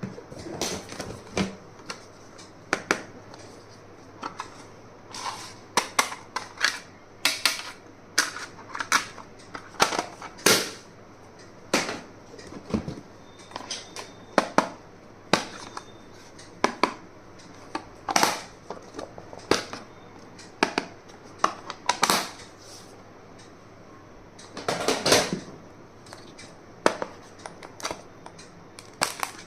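Irregular sharp clicks and taps of small hard stationery items being handled, opened and set down, one or two a second, with a longer scraping rustle near the end.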